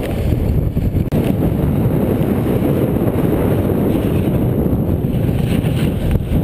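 Steady rush of wind buffeting the microphone while snowboarding downhill at speed, mixed with the board sliding over snow.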